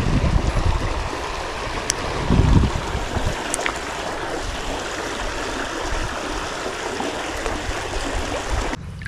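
Steady flowing water of a stream, with a few low rumbles on the microphone in the first three seconds. Near the end the water sound cuts off suddenly, leaving a quieter low hum.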